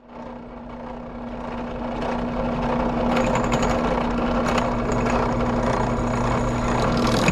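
Drill press running with a steady motor hum as a freshly resharpened twist bit is fed down into square steel tubing; the sound builds over the first couple of seconds and a scraping grind of the bit cutting the steel joins about three seconds in.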